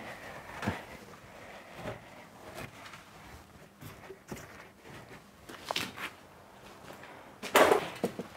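Gloved hands pushing and fitting mineral-wool insulation slabs between timber studs: irregular soft rustles and knocks, with the loudest scrape near the end.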